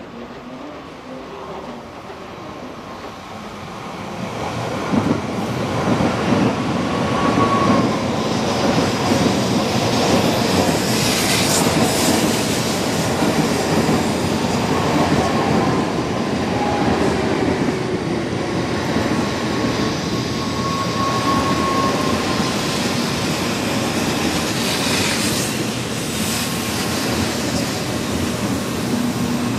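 N700 series Shinkansen train moving along the platform. Its rumble builds about four seconds in and then holds steady, with a few brief high squealing tones.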